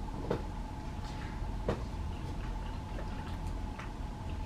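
Forks clicking and scraping against bowls of food, with two sharper clicks in the first two seconds and lighter ones after, over a steady faint hum.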